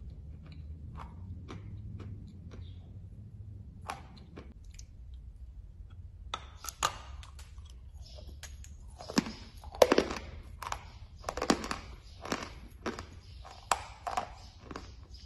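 A person crunching on a chalk tile: soft chewing crunches at first, then a fresh bite into the white chalk block about halfway through, followed by loud, crisp crunching chews at roughly two a second.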